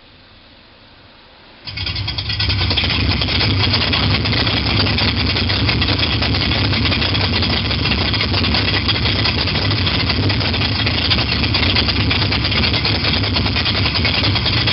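Simulated sports-car engine sound from the XLR8 iPhone app, played loud through the Prius's car stereo. It cuts in abruptly about two seconds in and then runs steadily like a big engine idling.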